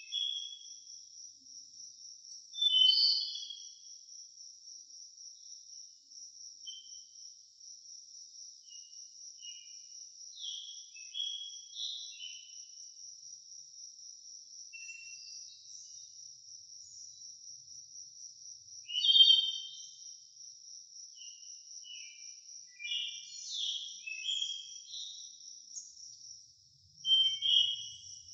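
Nature ambience: a steady high insect trill throughout, with bursts of short bird chirps every few seconds. The chirps are loudest about three seconds in, about two-thirds of the way through, and near the end.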